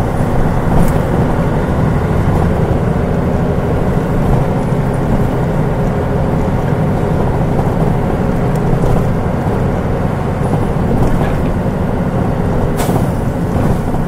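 Mitsubishi Fuso Aerostar city bus (KL-MP37JK) with its 6M70 turbocharged diesel engine running, heard from inside the bus as a steady engine and road noise. Two short sharp noises come through, one about a second in and one near the end.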